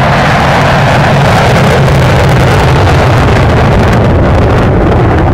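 Jet engine of a jet-powered school bus running, loud and steady, with a constant low rumble under a wide rushing noise.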